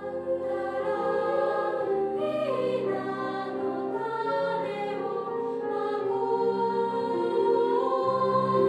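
A school and youth choir singing a slow choral song, many voices holding long notes in harmony.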